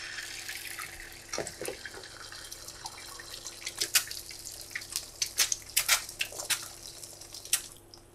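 An egg frying in hot oil in a nonstick pan, sizzling with many sharp spattering pops as soon as it is cracked in. The sizzle dies down near the end.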